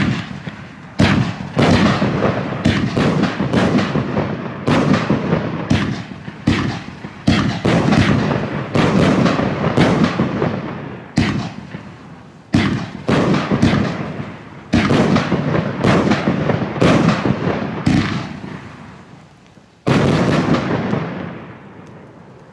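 Funke Blaublink-Brokat 16-shot, 30 mm fireworks battery firing: a fast, uneven run of loud bangs from the shots lifting off and bursting, each trailed by an echo. The last big bang comes near the end and fades away.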